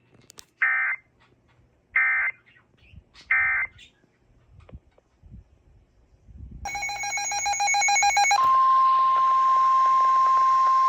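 NOAA Weather Radio emergency alert signals. Three short digital data bursts about a second and a half apart mark the end of a tornado warning. After a few seconds of quiet, a harsh buzzing data burst leads into the steady 1050 Hz weather radio warning alarm tone that opens the next tornado warning.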